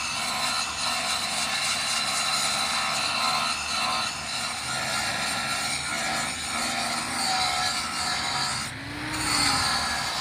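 Angle grinder with an abrasive disc grinding down weld build-up on the broken teeth of a steel helical gear pinion, shaping the rebuilt teeth; a steady grinding screech over the motor's whine. It dips briefly about nine seconds in, then bites again.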